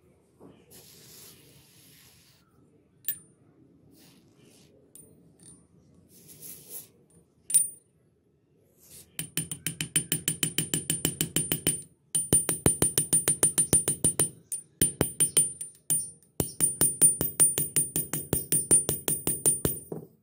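Rapid metal-on-metal tapping on rusty needle-nose pliers resting on a steel gear, about six strikes a second, each with a high ringing ping. It comes in three runs with short pauses, after some quieter handling and a couple of single clicks.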